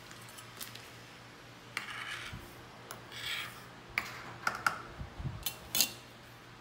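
Cornmeal scooped from a plastic bag into a metal measuring cup and levelled off with a knife. The plastic crinkles, the blade scrapes across the cup, then several sharp clinks and taps of metal on metal and on a ceramic bowl, the loudest near the end.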